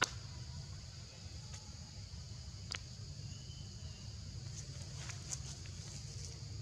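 Steady high-pitched insect chorus, crickets or cicadas, over a low steady rumble, with a few short sharp clicks, the loudest right at the start.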